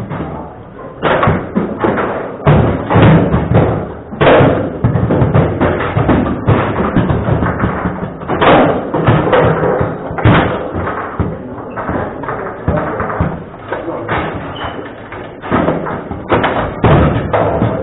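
Table football in play: the ball struck by the figures and rattling off the table walls, with many irregular sharp knocks and thuds from shots and the rods.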